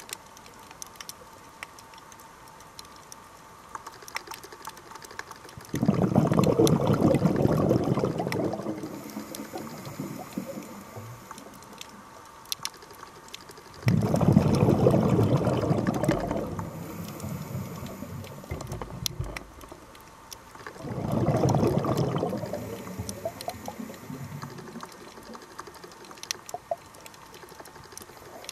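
Scuba regulator exhaust bubbles heard underwater: three bursts of bubbling from the diver's exhalations, about seven or eight seconds apart, each starting sharply and fading over a few seconds. Faint scattered clicks run between them.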